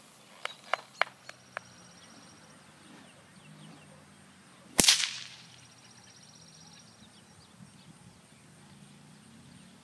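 A long whip cracking once, loudly, about five seconds in. A quick run of five sharp clicks comes earlier, about half a second to a second and a half in.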